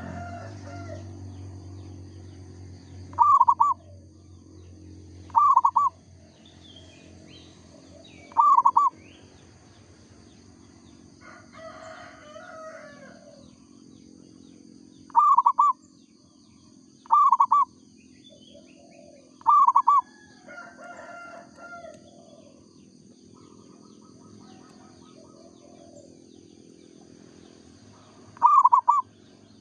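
Zebra dove (perkutut) singing: seven short, loud cooing phrases at irregular intervals of a few seconds. Other small birds chirp faintly in between, over a steady high whine and a low hum that fades out in the first few seconds.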